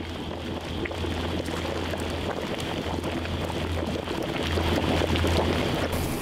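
Large aluminium stockpots of anchovy broth boiling hard over gas burners: a steady low burner roar under dense bubbling, getting louder a little past the middle.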